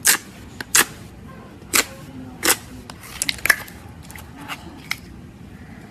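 Clear slime being squeezed and poked, giving sharp pops: four loud ones in the first two and a half seconds, a quick run of smaller crackles about three seconds in, then a couple of softer pops.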